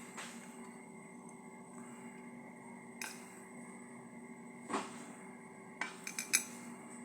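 Tableware clinking during a meal: a few separate sharp clinks, then a quick run of four or five near the end, over a steady hum.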